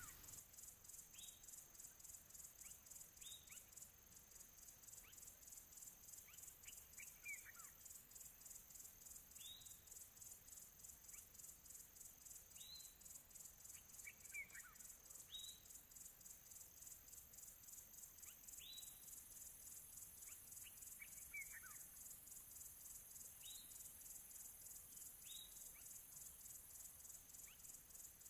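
Faint insect trilling, a fast steady pulse high in pitch, with short high falling chirps every couple of seconds.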